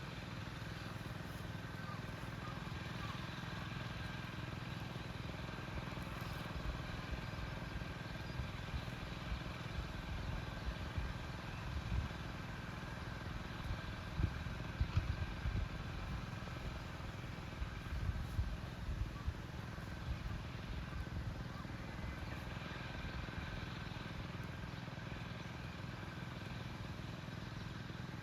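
Small engine of a machine chain weeder running steadily as it drags the weeding chain through the paddy, with a few louder low knocks around the middle.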